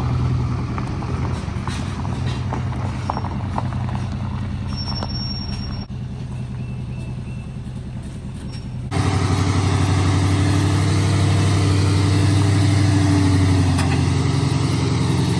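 Truck engine running steadily while driving, a low even drone; the sound jumps louder and steadier about nine seconds in, at a cut between shots.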